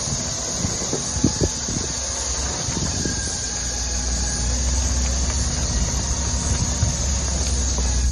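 Toyota LandCruiser 105 Series engine running at low revs as the truck crawls through a deep rut, with a few sharp knocks and creaks from the suspension and tyres in the first second or two. A steady high hiss runs over it throughout.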